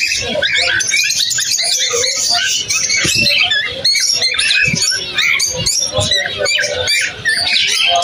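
A flock of caged white zebra finches calling all at once, a dense chatter of short, overlapping chirps and beeps. A few soft low thumps sound in the middle of it.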